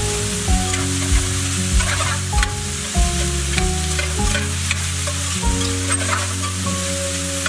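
Diced mushrooms sizzling in oil in a stainless-steel skillet, stirred and tossed with a spatula that scrapes the pan. Background music with a steady beat plays along.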